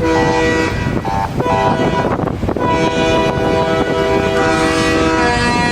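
Several truck air horns sounding at once, overlapping chords that cut in and out, over a low rumble.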